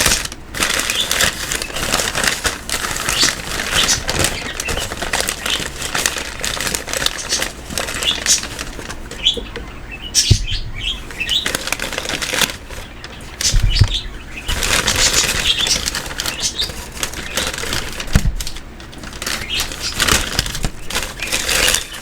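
Packaging rustling and crinkling as items are unpacked and handled, with a few soft thumps.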